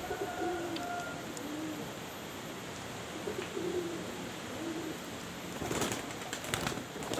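Domestic pigeons cooing in low, wavering calls. Near the end there is a brief burst of wing-flapping from a pigeon held in the hands.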